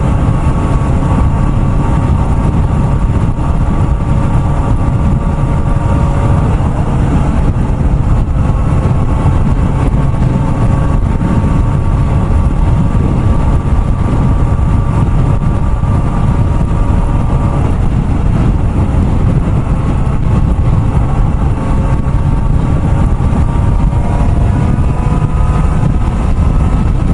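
Kawasaki ZX-4RR's 399 cc inline-four engine running steadily at highway cruising speed under heavy wind and road rumble. Near the end the engine note steps up in pitch.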